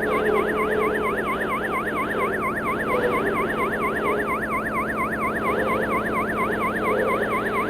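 A fast yelping siren, its pitch sweeping up and down about four times a second, over a dense, steady low drone.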